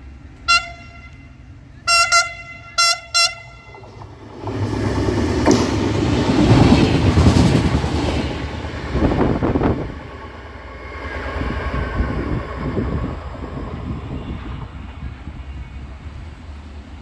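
Diesel multiple unit sounding its horn in five short toots in quick groups, then passing close by at speed: a loud rush of wheel and engine noise peaking about seven seconds in, a quick run of wheel clicks near ten seconds, then fading away.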